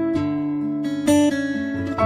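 Background music: acoustic guitar picking, with a new note or chord struck about once a second and ringing on.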